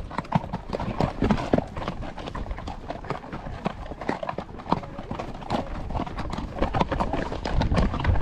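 Horse's hooves clip-clopping and scraping on rock in an irregular run of knocks while the horse picks its way down a steep, rocky descent.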